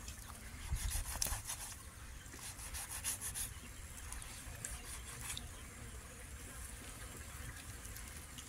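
Large knife slicing scores into the side of a whole catfish: faint rubbing, scraping strokes in two short runs in the first half, then quieter, over a low steady rumble.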